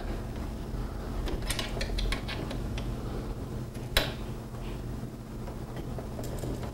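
Light metallic clicks and clinks of a wrench working the bolts of the roof rack's brackets as they are tightened, a few close together about a second and a half in and one sharper click about four seconds in, over a steady low hum.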